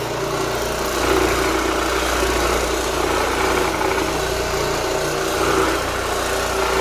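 Square scrub oscillating floor machine running steadily as it scrubs the old polyurethane finish off a hardwood floor: a constant low hum with a hiss of the pad on the wood, a little louder from about a second in.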